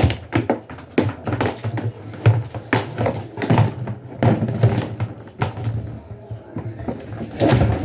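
Irregular knocks, clunks and rattles from a washing machine's body and lid being handled and shifted.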